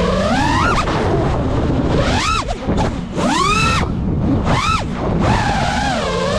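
FPV quadcopter's brushless motors whining over wind noise. The pitch swoops up and falls back several times as the throttle is punched and eased.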